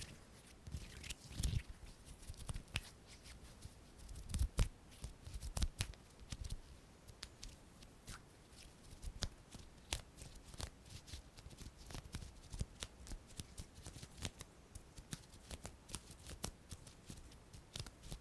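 ASMR hand sounds: quick, irregular clicks and taps of fingers and palms, growing denser in the second half, with a few heavier thumps in the first five seconds.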